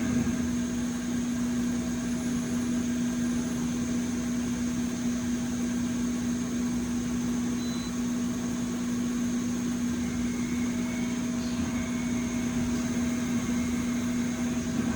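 Okuma CNC milling machine running its cycle, a steady machine drone with a strong low hum held throughout. The tool is running dry, with the coolant lines not aimed at it, while it sounds odd enough to be remarked on.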